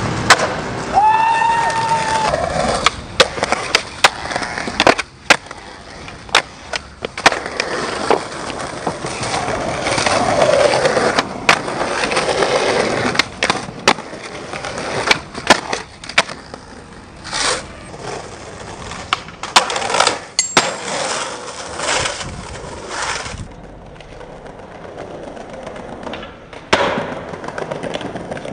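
Skateboards rolling over concrete and paving, broken by many sharp pops, clacks and landings of street tricks. The rolling goes quieter for the last few seconds.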